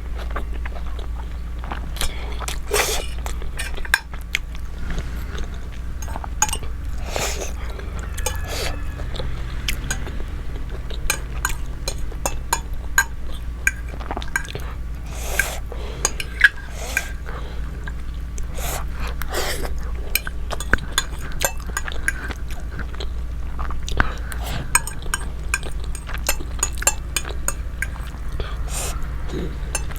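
Close-up eating sounds: a utensil clinking against a bowl, with wet slurping and chewing of spicy instant noodles in soup, as many short clicks scattered throughout. A steady low hum runs underneath.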